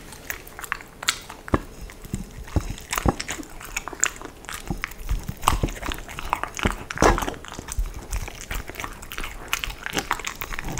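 A Samoyed crunching and chewing cubes of pumpkin, close to the microphone. The crunches come in an irregular run of sharp bites, with the loudest about seven seconds in.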